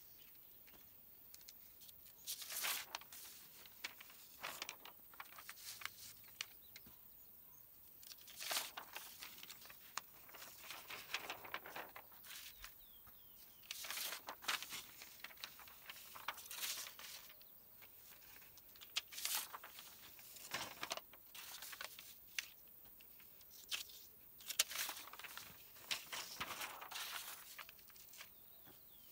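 Sheets of drawing paper rustling and crinkling as they are handled, laid down on concrete and slid away, in short, irregular bursts every second or few.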